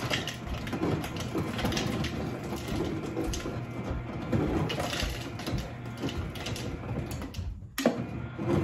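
Refrigerator door ice dispenser running, its motor crushing ice and dropping it into a plastic tumbler with a steady grinding clatter; it stops suddenly near the end.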